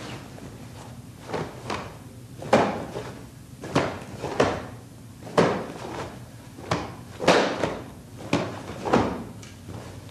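Sharp snaps of a cotton karate gi with each quick strike and block, with bare feet planting on the mat during a kata. There are about a dozen sudden snaps at uneven intervals, some in quick pairs.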